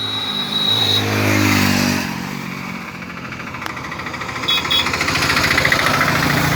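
Motor vehicle engines in road traffic: an engine revs up and passes close about a second in, then steady running continues. Two short high beeps come about four and a half seconds in.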